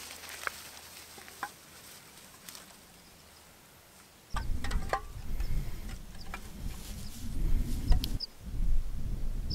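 Aluminium drink cans clicking and knocking against stones as they are wedged into the lake's edge. A low wind rumble on the microphone starts suddenly about four seconds in, with a few short high chirps over it.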